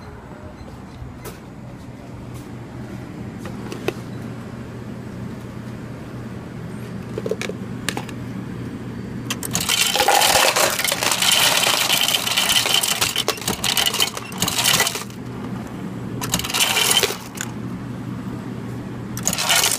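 Ice cubes clattering out of a self-serve ice dispenser into a clear plastic cup. There is one long rush about halfway through and two shorter ones near the end, over a steady low hum.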